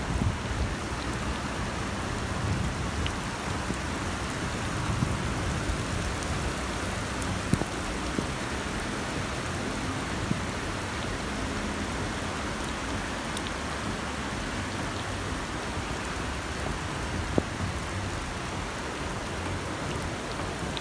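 Heavy rain pouring down steadily in a downpour, with a few short sharp taps, the clearest about a third of the way in and again near the end.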